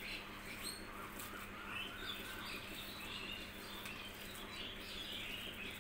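Small birds chirping in the background: many short, scattered chirps, faint, over a low steady hum.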